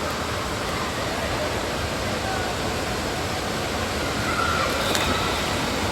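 Steady rushing of water-park water features, with faint distant voices mixed in.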